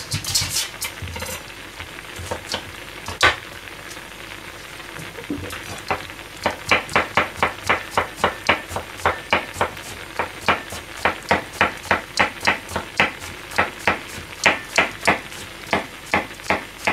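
Sharp clicks of a kitchen utensil tapping against a dish, a few at first, then a steady run of about three a second from about six seconds in, over the bubbling of a pan of tofu boiling in broth.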